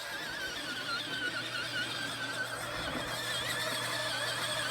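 High, wavering electric-motor whine of a toy truck being driven, over a steady low hum, with a click at the very start.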